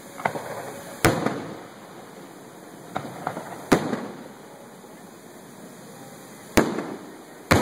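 Aerial firework shells bursting: about six sharp bangs spread irregularly across the few seconds, each followed by a fading echo.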